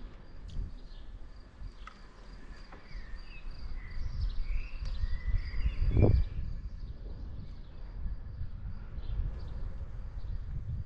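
Wind rumbling on a helmet-mounted action camera's microphone while cycling, with birds chirping from about three to six seconds in. A single thud about six seconds in.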